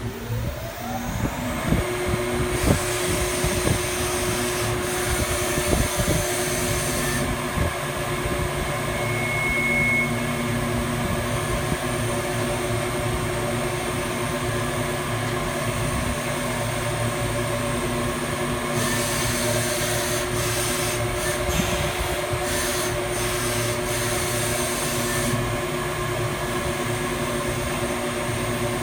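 Cylindrical grinder running. A motor or spindle whine rises in pitch over the first second or two and then holds steady. A high hiss comes in twice, from about 3 to 7 seconds and again from about 19 to 25 seconds.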